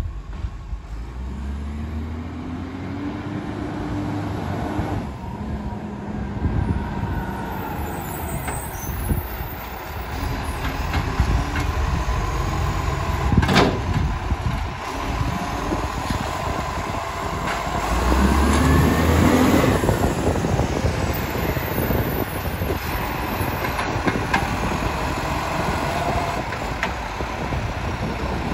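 Iveco ACCO side-loading garbage truck's diesel engine running as the truck drives up and pulls in close, with a short sharp burst of sound about halfway through and the engine revving up louder about two-thirds of the way in.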